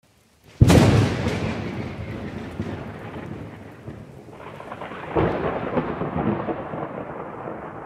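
Thunder crash sound effect: a sudden loud crack about half a second in that rumbles and fades slowly, then a second, softer crash about five seconds in.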